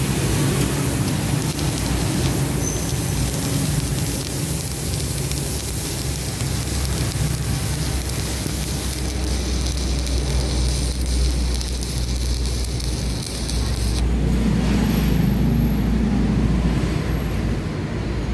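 Stick-welding arc from a Boss Arc 220 inverter welder burning a 4 mm rod: a steady crackling sizzle, which the welder finds a little weak for a 4 mm rod. The sizzle drops away about fourteen seconds in as the arc is broken.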